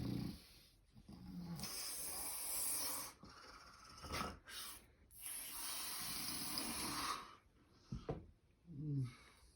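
A man snoring, with rough pitched snores and long noisy breaths in between, and a couple of short snorts near the end.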